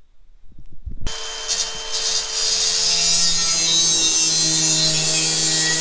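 Cordless angle grinder with a cutting disc slicing through the rim of a stainless steel dish. It starts abruptly about a second in, a loud, steady hiss of cutting with ringing metal tones running through it.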